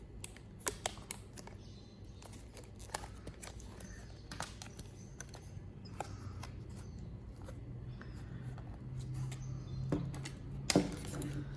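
Scissors snipping through stiff plastic blister packaging, a string of irregular sharp snips and plastic clicks with a louder cluster near the end.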